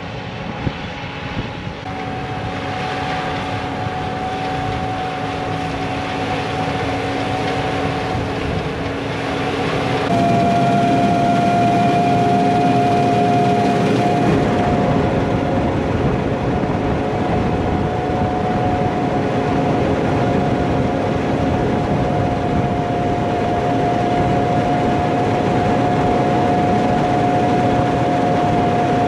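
Heavy farm harvest machinery running steadily: engine noise under a steady high whine, growing louder over the first few seconds and stepping up abruptly about ten seconds in.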